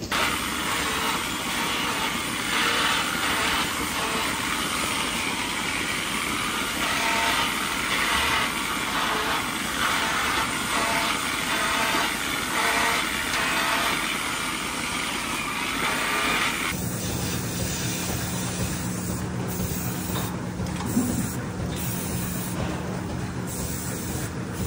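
Milking parlour equipment running: a steady hiss of vacuum and air from the milking units. About two-thirds of the way through it changes suddenly to a lower, steadier machine hum with a low tone.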